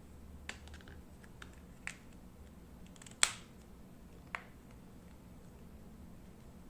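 A few light clicks and taps from handling a phone and its packaging, the sharpest a little over three seconds in, over a faint low hum.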